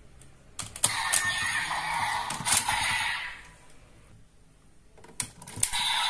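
Sharp plastic clicks of DX Raise Buckle toys being handled on the Desire Driver toy belt, with a dense electronic sound from the toy in the first half. More clicks come near the end as a buckle is brought to the belt.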